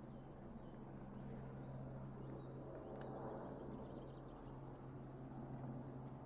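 Quiet outdoor ambience: a steady low hum with a few faint, short bird chirps.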